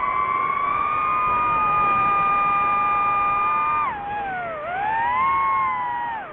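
DJI FPV quadcopter's motors and propellers whining in flight, several close tones held steady. The pitch drops sharply about four seconds in, dips, climbs back as the throttle opens, and falls again near the end.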